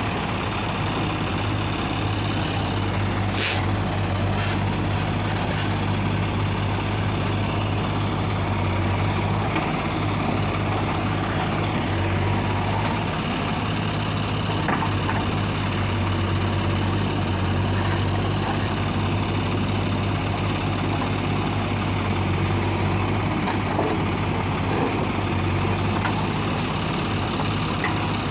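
JCB 3DX backhoe loader's diesel engine running steadily while the backhoe digs soil. There is a short sharp clank about three and a half seconds in.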